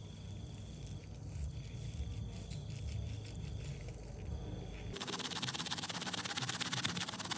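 A wet, soapy rug being scrubbed and scraped: low rubbing and scraping, then about five seconds in an abrupt switch to a dense, fine crackling hiss.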